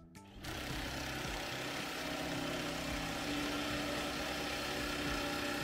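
Vehicle engine running steadily, cutting in abruptly just under half a second in.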